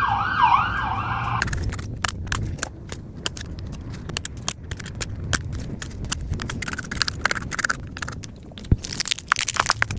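A short warbling tone wavers for the first second and a half. It is followed by many small, irregular clicks and taps as tools work on a smartphone being taken apart.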